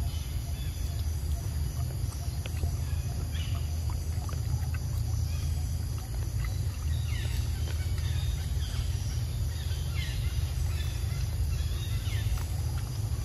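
Pig-tailed macaque chewing a mango, with scattered soft clicks of eating over a steady low rumble. Several short falling chirps sound now and then.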